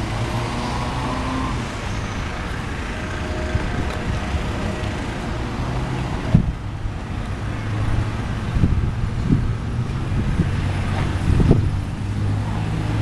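A car engine idling with a steady low rumble, with a few short knocks about six, nine and eleven seconds in.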